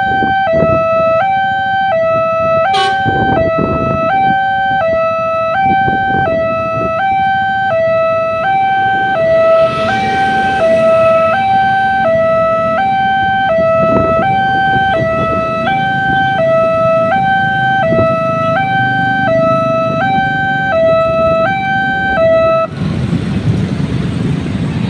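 Railway level-crossing warning siren sounding a two-tone hi-lo signal, switching between its two pitches about once a second. It cuts off near the end, leaving road traffic.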